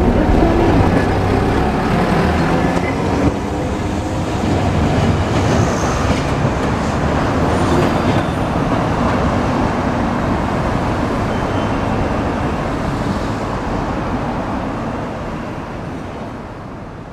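Hiroden 1900-series streetcar running on street-level track among road traffic, passing close by with a steady rumble of wheels and motors. The sound fades away near the end.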